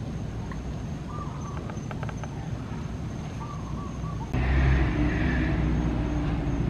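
Steady low outdoor rumble with a few faint short chirps in the first half; about four seconds in the rumble abruptly turns louder and fuller.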